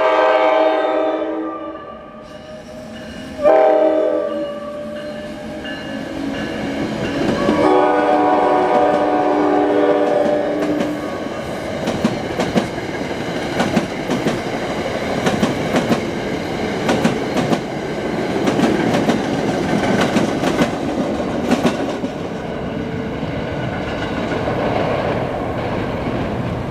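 NJ Transit North Jersey Coast Line commuter train sounding its horn for a grade crossing: a long blast ending about two seconds in, a short blast, then a long blast. The train then rumbles past, its wheels clacking.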